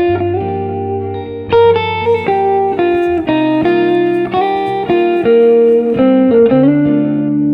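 Background music: guitar-led instrumental with a steady bass line, the notes changing every half second or so.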